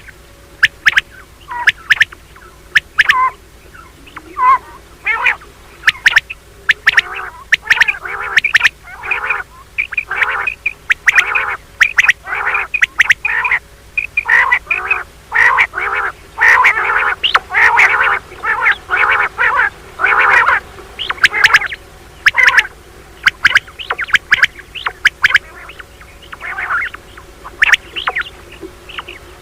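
Common quail calling in quick runs of short, harsh calls, thickest through the middle, with sharp clicks scattered among them.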